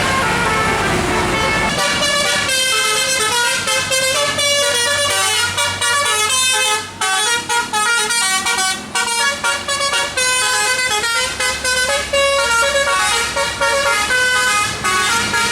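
A bus's telolet horn, a multi-tone musical horn, playing a fast melody of short stepped notes. It starts about two seconds in, after a noisy rush, over a low steady hum.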